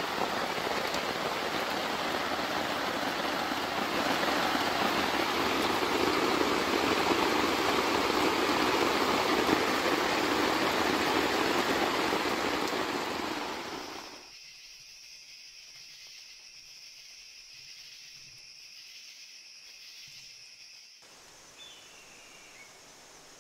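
Heavy rain pouring onto a tent, getting louder about four seconds in. About fourteen seconds in it cuts off to a quiet, steady chirring of night insects.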